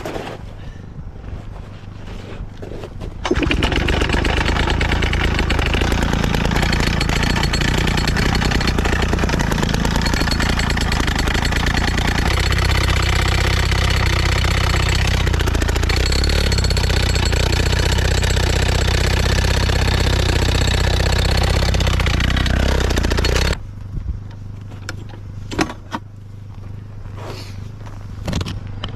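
1970s Pioneer jackhammer breaking ice, starting to hammer about three seconds in, running steadily for about twenty seconds, then cutting off suddenly. A few short knocks follow.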